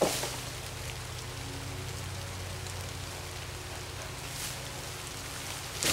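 Steady rain falling on leaves and brush, with a sharp tap right at the start and another near the end.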